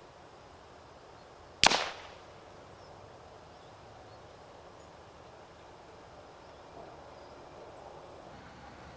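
A single suppressed shot from a .22LR rimfire rifle firing Eley subsonic ammunition, heard from a distance: one sharp crack with a short tail.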